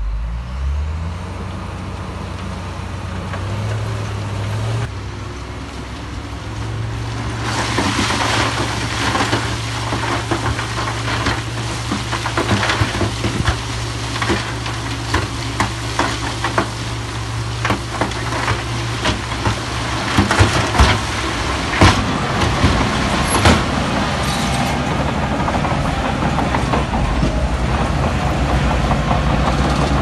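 Heavy diesel earthmoving machine running steadily, its engine picking up in the first second. From about a quarter of the way in, a dense run of clanks, knocks and scraping rides over it, loudest a little past the middle.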